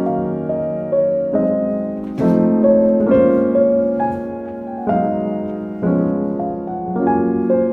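Background piano music: soft chords and a melody, with new notes struck about once a second.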